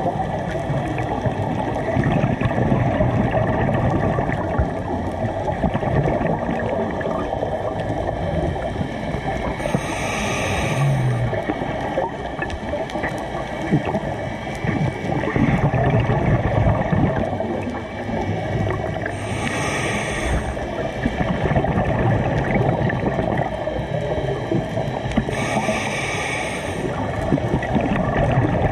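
Scuba regulator breathing heard underwater: three hissing inhalations, each about a second long and several seconds apart, over a steady low rush of water and exhaled bubbles.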